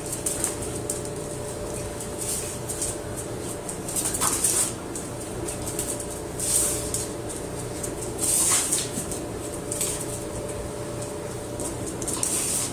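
A dog's claws scrabbling and skidding on concrete in short irregular bursts as it darts after a laser pointer dot, over a steady low hum.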